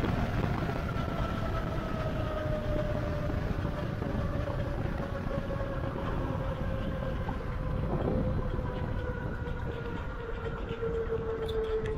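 Wind and tyre noise from an e-bike riding along a paved road, a steady rumble, with a thin whine slowly falling in pitch underneath.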